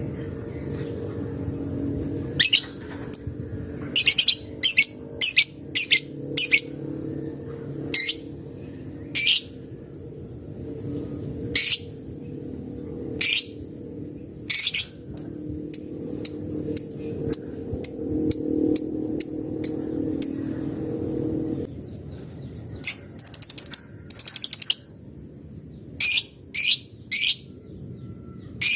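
Labet bird calling a rival: short, sharp, high calls repeated at irregular gaps, sometimes in quick runs of several notes and a longer chatter about 23 seconds in.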